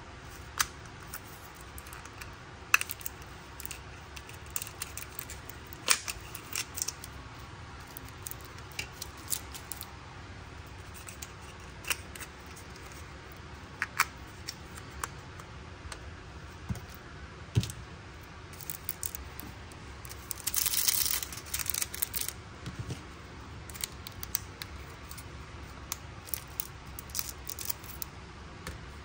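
Small clicks, taps and crinkles of a miniature toy cereal box and its tiny packet being handled and opened, with scissors snipping the packet at the end.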